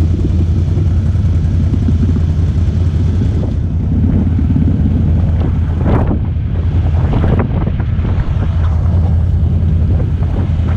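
Off-road utility vehicle engine running steadily under way through mud, with wind on the microphone and two short, sharper sounds about six and seven seconds in.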